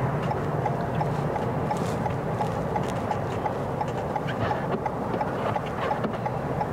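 A car's turn signal ticking steadily in an even rhythm, several ticks a second, inside the cabin over the low hum of the car driving.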